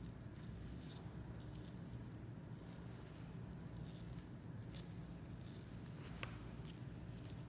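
Knife slicing through the fat and membrane of a Kuroge Wagyu beef belly slab as it is peeled back, a series of short, soft slicing and scraping strokes with a sharper click about six seconds in. A steady low hum runs underneath.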